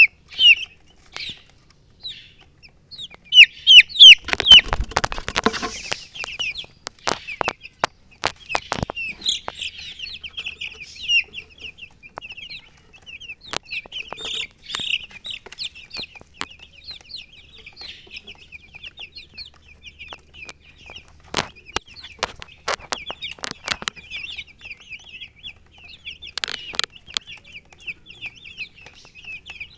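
Baby chicks peeping in a steady stream of short, high-pitched chirps, many overlapping. A loud spell of knocking and rustling comes about three and a half seconds in, the loudest part, with scattered sharp clicks later.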